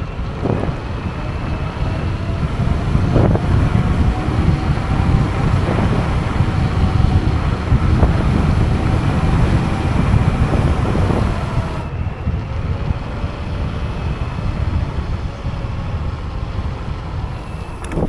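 Wind rushing over the microphone and road rumble from a Teverun Fighter 11 electric scooter in motion, with a faint electric motor whine whose pitch slowly rises and falls with speed.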